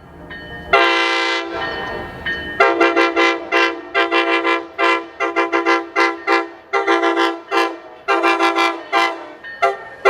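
Train air horn sounded in one held blast of about two seconds, then played in a rapid string of short toots, several a second, in a stuttering rhythm.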